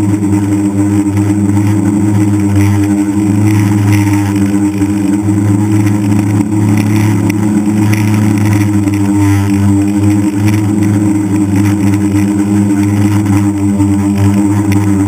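The six brushless motors and propellers of a DJI F550 hexacopter give a steady, loud hum, heard up close through the drone's own onboard camera. The pitch wavers slightly as the motors adjust their speed in flight.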